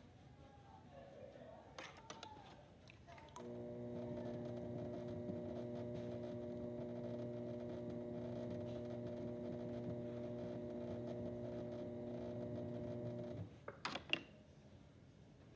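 Electric pottery-wheel motor running with a steady, even hum that switches on about three seconds in and cuts off near the end, followed by a few sharp clicks.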